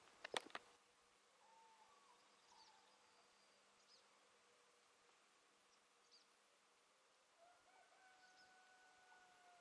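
Near silence in open countryside at dawn. A few sharp clicks come right at the start. After them there are a few faint high bird chirps, and a faint steady buzzing hum in the last two seconds.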